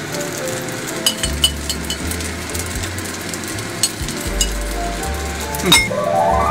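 Fried rice sizzling steadily in a hot frying pan, with a few light clinks of a utensil against the pan and plate. Near the end a rising musical jingle starts.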